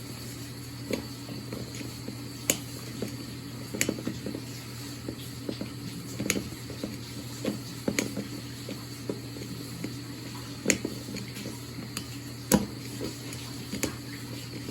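Pliers gripping and turning a screw down into a wine cork, giving sharp clicks and small knocks every second or two over a steady low hum.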